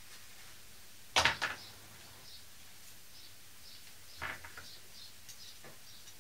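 Handling knocks of a copper brake pipe and its fittings against a wooden workbench: two sharp knocks just over a second in, then a softer cluster of small clicks around four seconds in.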